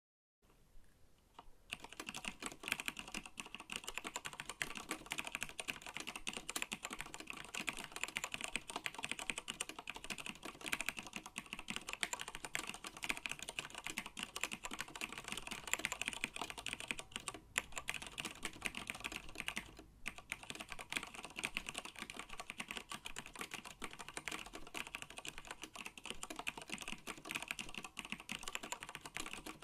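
Fast continuous typing on a TG3 BL82 mechanical keyboard with Cherry MX Black switches: a dense run of key strokes that starts about two seconds in, with brief pauses near the middle.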